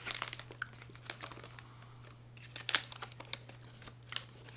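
Crinkly candy wrapper being handled and pulled open, in scattered crackles and clicks with a busier rustle about two and a half seconds in.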